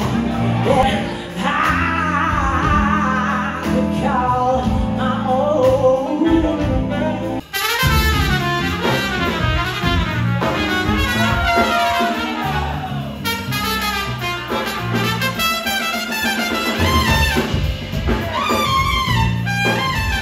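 Live band music. A woman sings over the band, then after an abrupt cut about seven and a half seconds in, a trumpet plays the lead over the band.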